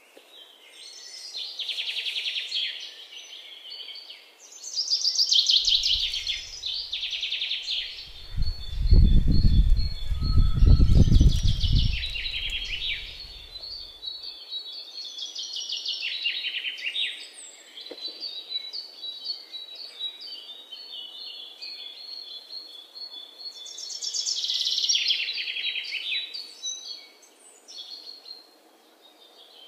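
Songbirds singing throughout in repeated bursts of chirps and trills, with a thin steady high trill between the bursts. A deep low rumble runs for several seconds in the middle and is the loudest sound.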